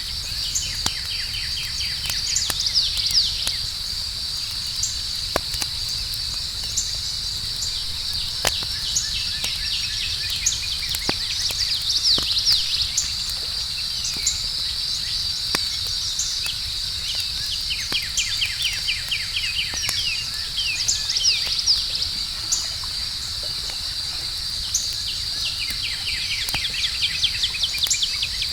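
Night insect chorus with a steady high cricket trill and runs of quick chirps every few seconds, over scattered sharp pops and crackles of a campfire.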